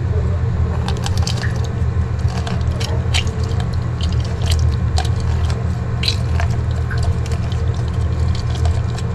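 Lemon halves twisted and pressed by hand on a plastic citrus reamer, with wet squeezing and scattered small clicks and crackles, over a steady low hum.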